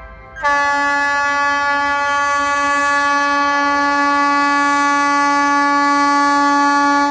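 Indian Railways locomotive air horn sounded in one long, steady blast, coming in loud about half a second in after a fainter start. It is the continuous emergency honking the loco pilot gave to drive a dog off the track.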